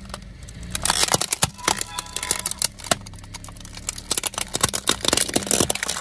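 Hard plastic toy dinosaur and its plastic egg cracking and crunching under a slowly rolling car tyre: many sharp snaps, thickest about a second in and again near the end, over a steady low hum.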